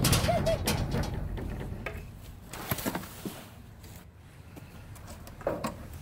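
A long reach pole knocking and scraping inside an empty steel dumpster: a loud knock at the start whose low boom dies away over about two seconds, a short two-note squeak just after it, and a few light clicks later on.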